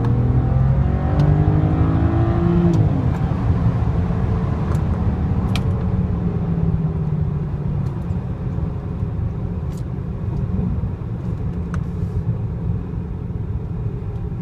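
BMW N54 twin-turbo inline-six accelerating hard, rising in pitch for about three seconds, then dropping and running on steadier and a little quieter, heard from inside the car.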